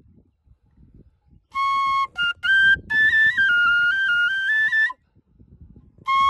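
Side-blown flute playing a melody of clear held notes that step up and down in pitch. The first second and a half is nearly quiet; the phrase runs until about five seconds in, pauses, and the flute comes in again just before the end.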